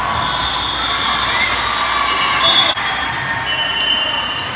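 Indoor volleyball rally: sneakers squeaking on the sports court amid the echoing noise of a crowded hall, with one sharp smack of the ball being hit a little past halfway.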